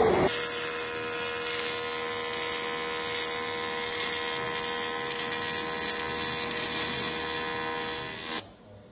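AC TIG welding arc on an aluminium alloy wheel rim: a steady electric buzz over a hiss, which cuts off suddenly near the end when the arc is broken.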